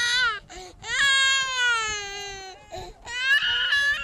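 A baby crying: long, high wailing cries, each sliding down in pitch as it ends, with short breaks between them; the last cry is the loudest.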